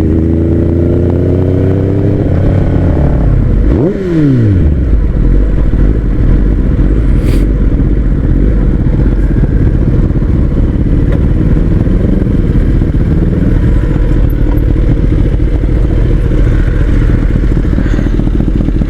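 Kawasaki Ninja ZX-10R's inline-four with an Akrapovic full-system exhaust running, its revs dropping sharply about four seconds in, then settling into a loud, steady idle.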